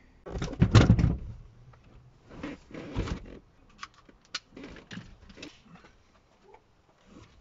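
Handling noise from a car seat being worked free and lifted out of a car: heavy thumps and rustling, loudest about a second in and again near the three-second mark, with scattered sharp plastic clicks in between.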